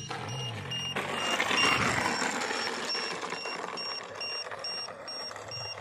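High electronic beeps pulsing about twice a second, with a surge of rushing noise about a second in that peaks and fades by around three seconds.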